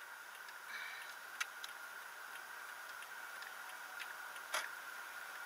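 Quiet car-cabin sound picked up by a dashcam microphone: a steady hiss with a thin high whine, and scattered light ticks, the two sharpest about a second and a half in and about four and a half seconds in.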